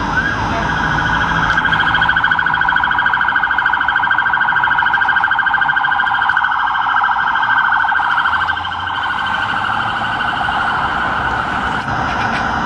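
Police car siren on an unmarked Skoda Octavia responding to an emergency, sounding a fast, rapidly warbling tone. It drops a little in level about eight seconds in as the car moves away.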